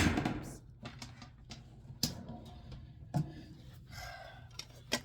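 Scattered light clicks and knocks of things being handled, with sharper knocks about two seconds in, a little after three seconds, and near the end.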